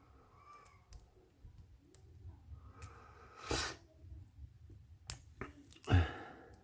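Lock picks working in the keyway of a Stanley laminated steel padlock: small scattered clicks of the hook and pry bar against the pins, with two louder knocking rattles of the lock and tools, about three and a half and six seconds in.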